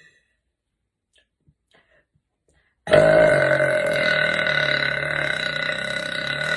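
A woman's long, loud, deliberate burp, starting about three seconds in after near silence and held at a steady low pitch for around four seconds.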